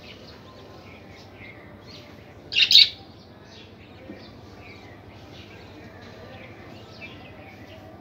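Budgerigars chirping softly and intermittently, with one loud, sharp double call about two and a half seconds in.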